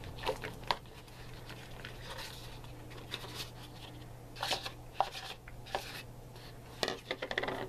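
Diced onion pieces tumbling from a small plastic bowl into a plastic mixing bowl of ground beef, with scattered soft taps and rustles, a small cluster of them near the end. A steady low hum runs underneath.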